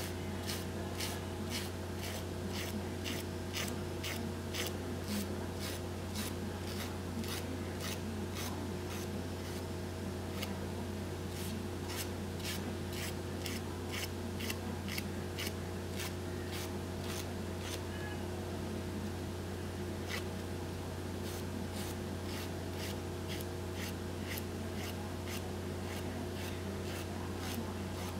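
Nail file rasping in quick short strokes across the tip of a fingernail, about two or three a second, trimming off the overhanging edge of a nail wrap. The strokes thin out briefly past the middle. A steady low hum runs underneath.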